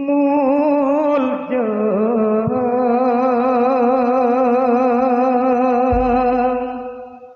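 A solo voice singing through a microphone, holding long drawn-out notes with a heavy, even vibrato and no instrumental accompaniment, fading out near the end.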